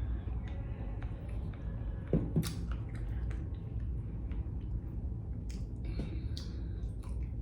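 A person eating: chewing and small mouth and utensil clicks come and go, with a few louder clicks about two seconds in, over a steady low background hum.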